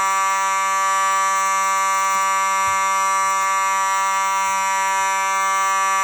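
Simplex 4903-9221 electromechanical fire alarm horn sounding continuously: one loud, steady, unbroken tone at a single pitch, rich in overtones.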